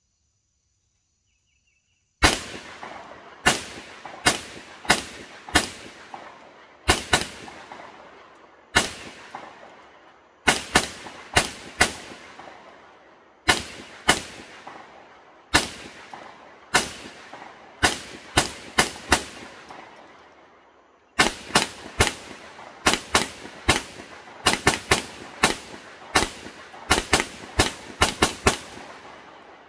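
Kel-Tec SUB-2000 Gen 2 semi-automatic carbine firing several dozen rounds one shot at a time, starting about two seconds in. The pace is uneven, roughly one to two shots a second, with a brief pause about two-thirds through and a quicker string near the end. Each shot trails off in a long echo.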